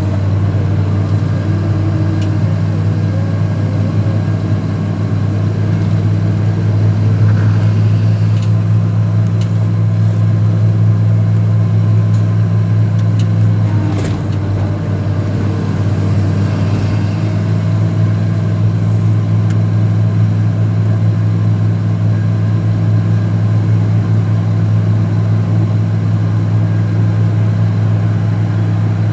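Excavator engine running steadily, a deep even drone, with a single sharp knock about halfway through.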